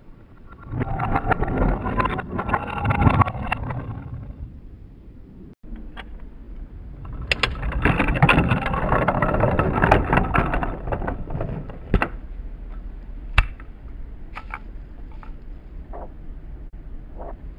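Wooden toy train engines rolling along wooden track, wheels clattering and clicking over the rails and joints in two runs, the second longer, followed by scattered lighter clicks.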